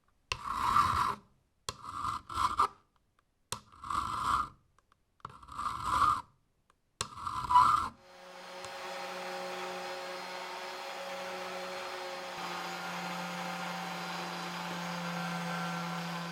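Six separate hand-filing strokes, about one every 1.3 seconds, rasping on wood. About halfway in they give way to a small electric machine starting up and running steadily with a hum.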